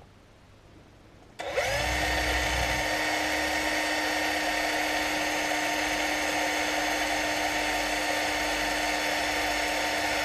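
Cordless drill starting about a second and a half in and then running at a steady speed with a steady whine, boring a 2.1 mm pilot hole in the telescope's secondary mirror holder plate.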